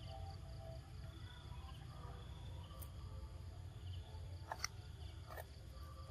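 Faint outdoor ambience: a low steady rumble with thin high chirping of insects or birds in the background, broken by a couple of short, sharp squeak-like sounds about four and a half and five and a half seconds in.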